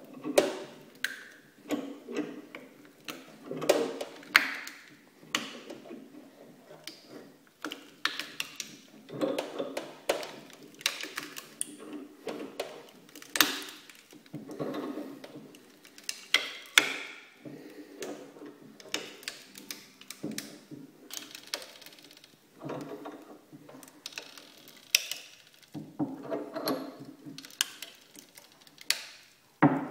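A metal vise screw being cranked tight on a Nikon CoolPix compact camera, with irregular clicks, creaks and sharp cracks as the camera's plastic body and lens housing are crushed between the jaws.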